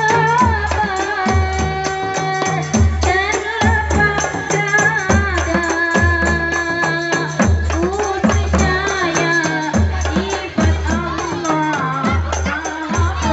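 Girls singing a melody to a steady beat of hand-held rebana frame drums, about three strokes every two seconds, amplified through microphones.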